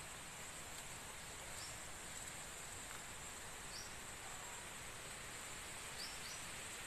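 Faint rural outdoor ambience: a steady high-pitched insect drone over a soft hiss, with four short rising chirps spread through it, the last two close together.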